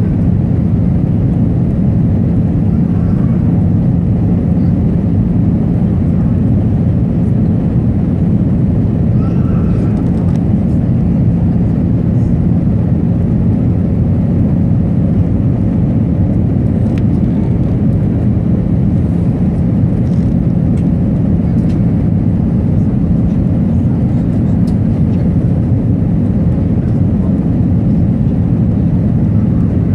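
Steady cabin noise of an Airbus A319 in flight, heard inside the passenger cabin: an even rumble of engines and airflow with a constant low hum.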